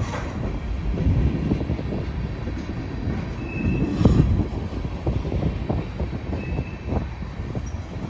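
Norfolk Southern manifest freight train's cars rolling slowly past, wheels knocking and clanking over the rail joints, with a louder thump about halfway through and two brief high wheel squeals.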